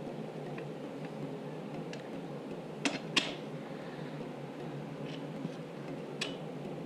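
A few light clicks and knocks of work on the motorcycle's wheel, two sharper ones close together about three seconds in, over steady room noise.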